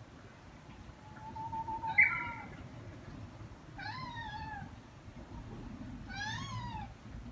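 Cat meowing three times: a longer call that jumps up sharply about two seconds in, then two short meows that rise and fall, about two seconds apart.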